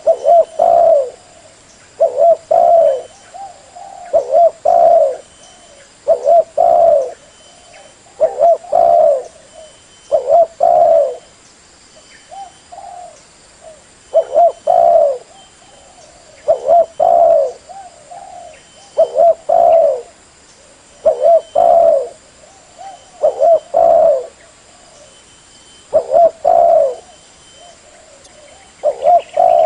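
Spotted dove cooing: short phrases of two or three low coo notes, repeated about every two seconds.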